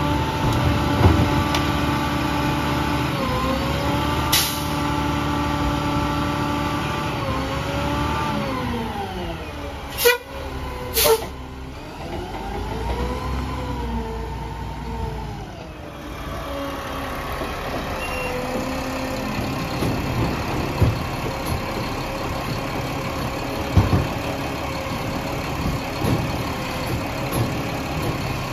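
Mack LR garbage truck's diesel engine held at raised revs to run the Labrie side loader's hydraulics, its pitch falling back, rising again and then settling to a steady idle. About ten and eleven seconds in there are two short sharp bursts of air, typical of the truck's air brakes.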